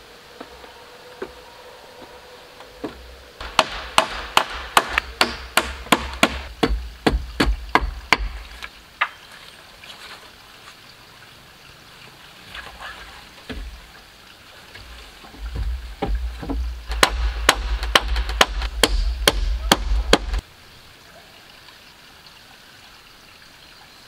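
Hand tool striking wood over and over, in two runs of about three sharp hits a second, with a few scattered knocks between the runs.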